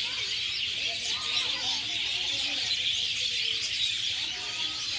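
Dense chorus of many small birds chirping at once, a continuous, busy twittering.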